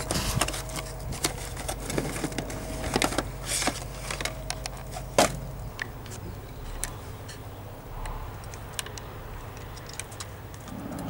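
Scattered light clicks and knocks of hands working with the spark plug leads on a VAZ four-cylinder engine, with one sharper click about five seconds in.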